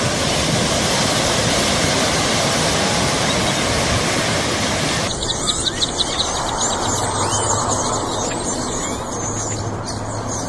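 A very large flock of birds calling all at once. For about the first five seconds it is a dense, even hiss; from then on many high chirps and squeals stand out.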